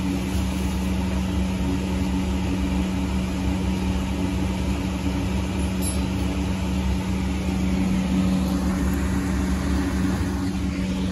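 Room air cooler's fan motor running with a steady hum.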